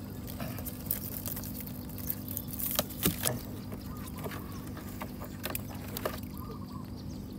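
Clicks, knocks and rattles of a wire-mesh crab trap being handled with crabs inside, the sharpest knocks about three seconds in, over a steady low hum.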